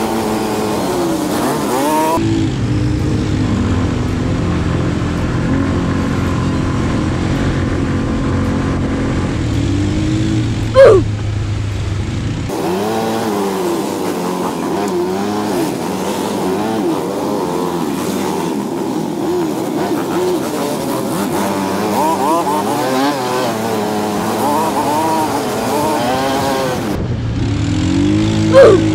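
ATV engine running and revving up and down as it rides along a rough dirt trail, its pitch rising and falling over and over. Two sudden loud noises cut through it, about eleven seconds in and again near the end.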